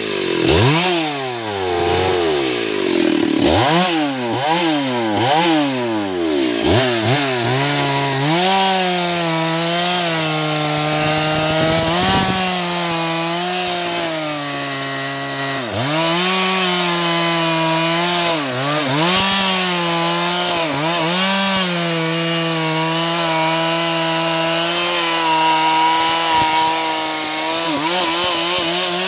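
Two-stroke Stihl chainsaw cutting into a large tree trunk. It is revved up and down about six times in the first several seconds, then held at high revs, its pitch sagging briefly several times as the chain bites into the wood.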